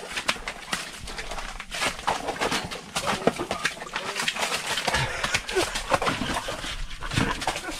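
A freshly landed pike flopping on the wet ice floor: a quick, irregular run of wet slaps and knocks.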